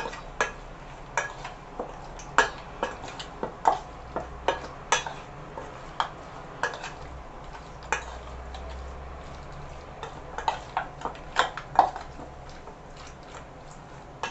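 A utensil clinking irregularly against a bowl as raw chicken pieces are stirred with cornstarch to coat them.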